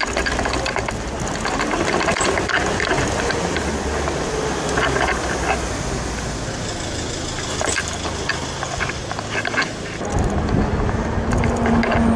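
Bicycle riding along a paved street: steady tyre and road noise with wind on the microphone, and scattered clicks and rattles from the bike. A lower rumble joins about ten seconds in.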